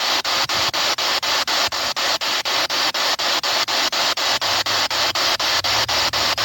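Spirit box sweeping through radio frequencies: steady hiss of static broken by short gaps about five times a second as it jumps from station to station.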